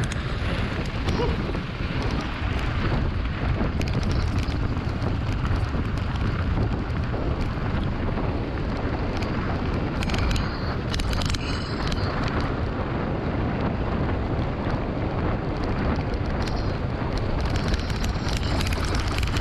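Mountain bike being ridden over rough ground: steady wind buffeting on the camera's microphone over a rumble and rattle from the tyres and bike, with a few sharp clicks about ten to twelve seconds in.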